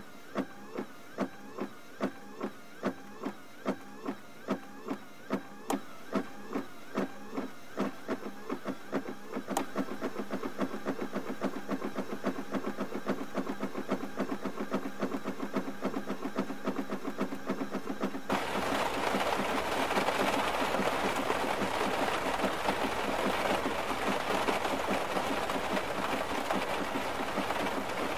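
A regular train of short pitched notes, about two a second, that grows busier midway; about two thirds in, the sound switches abruptly to louder heavy rain beating on a car's roof and windshield.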